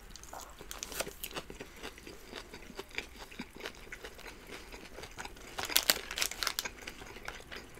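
Close-up chewing and crunching of doner kebab meat and raw vegetables, with small wet mouth clicks; a louder run of crunches comes about six seconds in.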